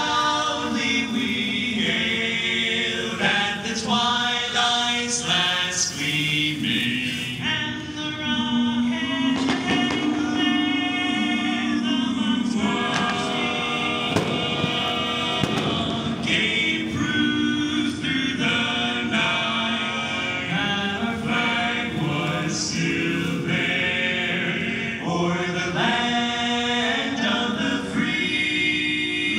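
Music with voices singing together, playing without a break.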